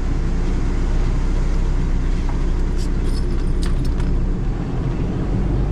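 Motor vehicle driving along the road: a steady low engine and road rumble, with a few light rattles around the middle.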